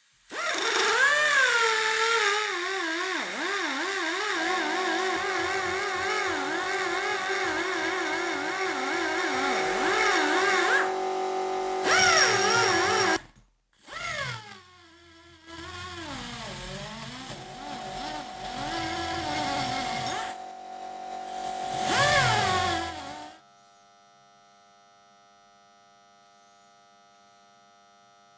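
Electric power tool motor running, its pitch dipping and recovering again and again as it is pressed into the work, in several cut-together stretches. It stops suddenly after about twenty-three seconds, leaving a faint steady hum.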